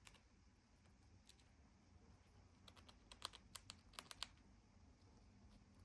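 Faint, quick dry clicks, about ten in a second and a half near the middle, from a pet squirrel nibbling at a forest cone.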